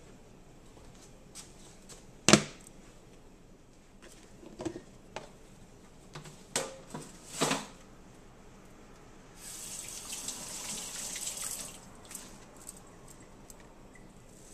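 Kitchen counter sounds: one sharp knock, the loudest thing here, about two seconds in, then a few softer clatters. Later a kitchen tap runs for about two seconds.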